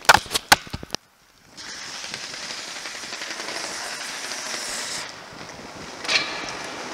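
A few knocks and clatters, then after a brief gap the steady hiss of roller-skate wheels rolling fast down a paved slope, with wind on the microphone. The hiss eases about five seconds in, and a short sharp scrape comes near the end.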